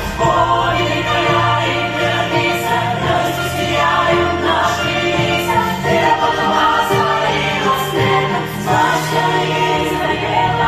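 Musical-theatre ensemble number: a chorus singing together over instrumental music.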